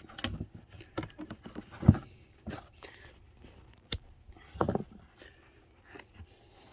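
Scattered clicks and knocks of hand tools being handled, with a louder thump about two seconds in and a sharp click about four seconds in.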